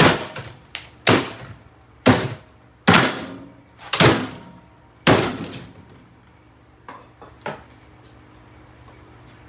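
Heavy blows striking a Kenmore mini fridge, six loud impacts about a second apart, each ringing out briefly, followed a couple of seconds later by a few lighter knocks.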